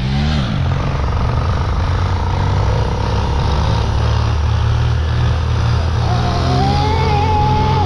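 Yamaha motorcycle engine running steadily at riding speed, with a rush of road and wind noise. About six seconds in, a higher tone rises and holds.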